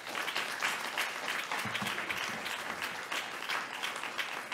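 Audience applause: many people clapping steadily after a talk.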